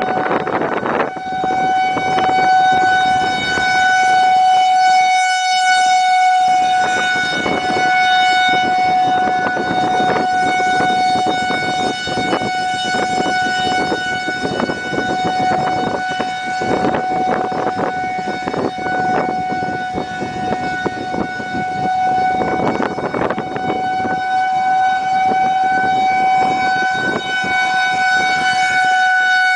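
Outdoor tornado warning siren sounding, starting about a second in and holding one steady pitch that swells and fades in loudness, over gusty wind and rain noise heard from inside a car.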